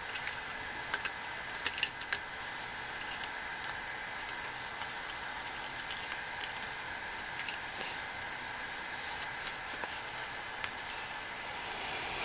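Light clicks and crackles of a failed 3D print being handled: stringy filament pulled off and the plastic print gripped and twisted on a polypropylene build plate it is stuck fast to. The clearest clicks come between one and two seconds in, over a steady hiss.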